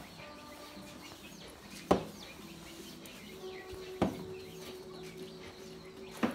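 Four sharp knocks about two seconds apart as the pool table's leg is struck into place against its wooden frame, with chickens clucking and birds chirping in the background.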